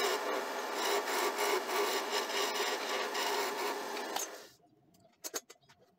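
A woodturning tool cutting into a wooden tool handle spinning on a lathe: a steady rough scraping over the lathe's hum as the tenon for the metal ferrule is shaped. The cutting stops abruptly about four seconds in, leaving a few faint clicks.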